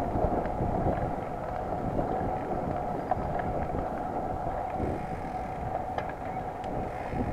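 Wind rushing over the microphone of a road bike riding along a paved path, mixed with steady rolling noise, and a few faint ticks about three and six seconds in.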